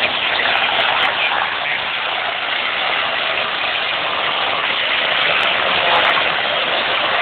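Aircraft engine noise at an air show: a steady, even rushing roar with no clear pitch.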